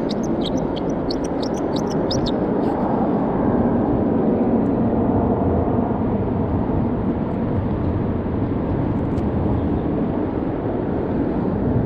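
A spinning reel ticking rapidly, about five times a second, for the first two seconds or so. A steady rush of wind and water against the small boat runs underneath.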